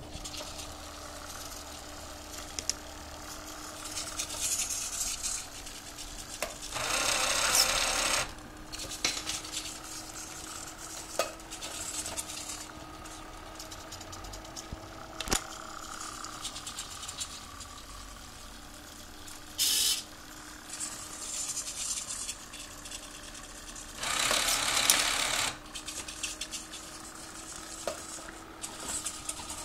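Servo motors of a homemade six-axis robot arm whirring in bursts as the joints move, over a steady low hum. The two loudest whirs come about 7 seconds in and about 24 seconds in, each a second or two long, with a short one near 20 seconds and small clicks between.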